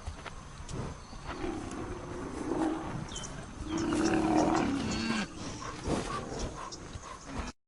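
Two long, deep calls from a large wild mammal, the second falling in pitch at its end, with faint high bird chirps behind. The sound cuts off suddenly near the end.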